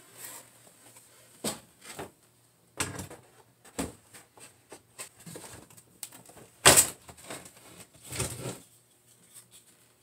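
Wooden kitchen drawer being worked back onto its runners: a series of irregular knocks and scrapes, the loudest a sharp knock about two thirds of the way through, followed by another about a second and a half later.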